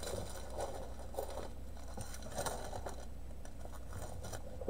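Faint rustling and a few soft taps of plastic-bagged diamond painting kits being handled, over a steady low hum.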